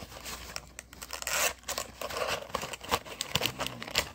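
Plastic wrappers of individually wrapped Krabby Patties gummies crinkling and rustling as they are dug out of their cardboard box, in a run of short crackles.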